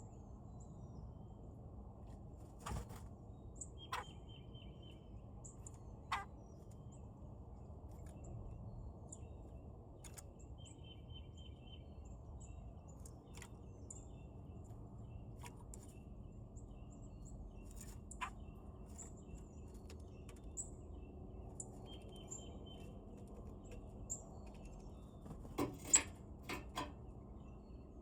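Birds at a feeder: a short run of rapid repeated call notes, heard three times, with scattered sharp taps and clicks, the loudest a cluster near the end, over a steady low background hum.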